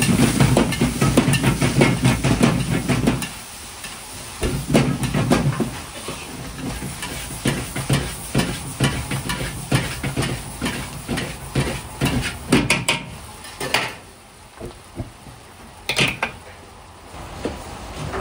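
Fried rice with green peas being stir-fried in an iron wok: it sizzles while a metal ladle scrapes and clacks against the wok in quick, repeated strikes. It is loudest and densest for the first three seconds, and the strikes thin out near the end.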